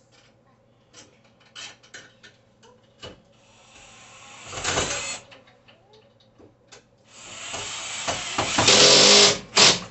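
Power drill/driver run in two bursts, a short one about four seconds in and a longer, louder one from about seven seconds, tightening the bolt that locks the TV bracket's clip to the wall mount. Light clicks and knocks of handling come before and between.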